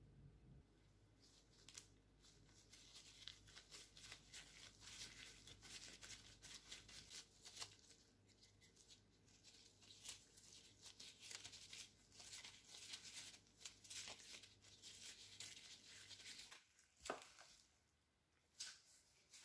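Faint crinkling and rustling of disposable plastic gloves as hands shape and press soft cookie dough, a dense run of small crackles.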